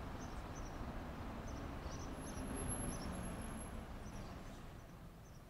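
Faint outdoor street ambience: a low steady hiss with scattered small high-pitched chirps, dying away near the end.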